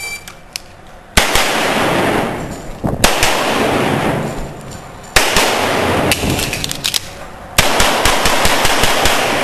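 Semi-automatic pistol shots in quick strings on an indoor range, each string followed by a long echo. Firing starts about a second in, comes in several groups, and ends in a fast run of shots near the end.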